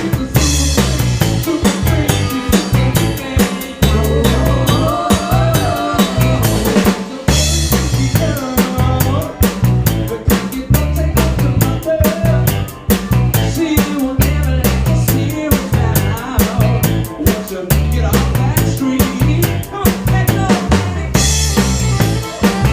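Live funk band playing with the drum kit up front: kick drum, snare and rimshots drive a steady beat over a bass line and melody. The groove stops briefly twice, about seven seconds in and near the end, before coming back in.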